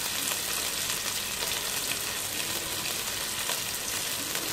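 Shredded green capsicum and carrot frying in hot oil in a steel pot: a steady sizzle.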